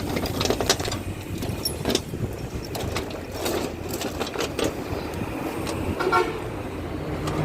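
Excavator engine running steadily while the bucket knocks and scrapes against soil and rock, with many short sharp clacks. A horn sounds briefly about six seconds in.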